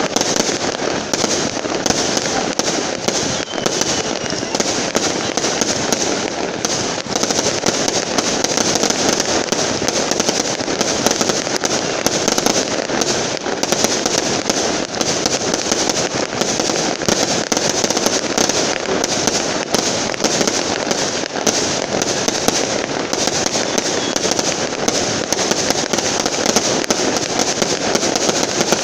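Fireworks display: a dense, continuous barrage of aerial shells bursting and crackling, with no let-up.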